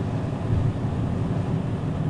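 Steady low drone of the ferry Aogashima-maru's engines while under way, with wind on the microphone.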